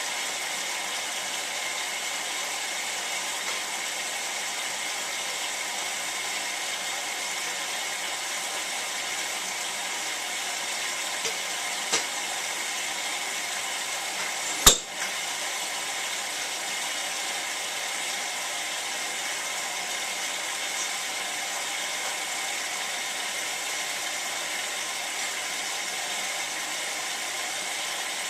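Hotpoint 9534A washing machine in the rinse stage of a Cotton 85 descaling wash, making a steady hiss. Two sharp clicks come about twelve and fifteen seconds in, and the second is the louder.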